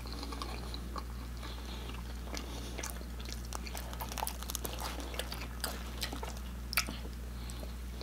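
Crackling clicks of a pepperoni pan pizza being torn apart by hand, mixed with soft chewing, over a steady low hum.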